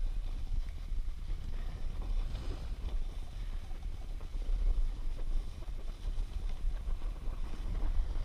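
Wind buffeting a GoPro's microphone in a low, gusting rumble as a snowboard slides downhill over packed snow.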